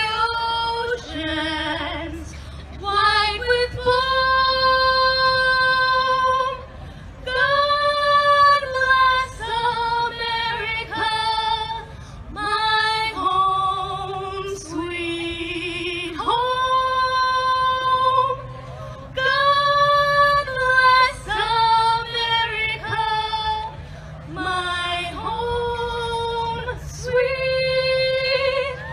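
A woman singing solo into a handheld microphone, unaccompanied, with many long held notes.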